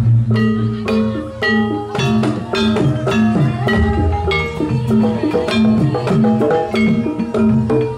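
Live Javanese gamelan-style ensemble: ringing pitched metal notes in a quick running pattern over rhythmic hand drumming.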